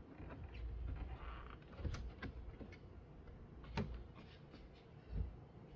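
A car's trunk side lining being handled and pushed back into place: low rustling and rubbing, with a few short knocks or clicks about two, four and five seconds in.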